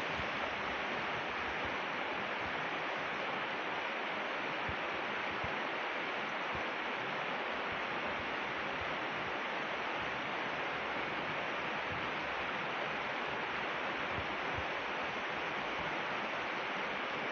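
Steady rushing of a river running over rapids, an even hiss of flowing water with no breaks.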